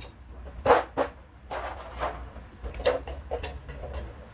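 Irregular sharp clinks and knocks of metal parts and tools as a truck air brake booster is handled and taken apart on a metal tray, about seven in all, the loudest a little under a second in.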